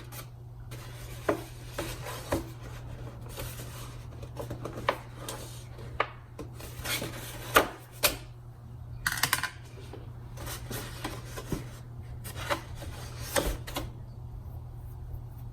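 Stiff cardstock petals being curled with a 9 mm curler: irregular scraping and rustling of paper, with several sharper rasps, over a steady low hum.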